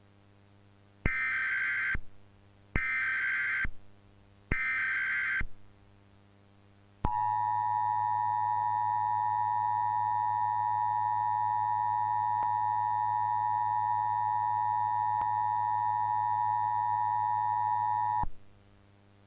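Emergency Alert System SAME header: three bursts of warbling digital data tones, each about a second long. These are followed by the EAS two-tone attention signal (853 and 960 Hz together), held steady for about eleven seconds and then cut off sharply. The sequence marks the start of an emergency alert broadcast.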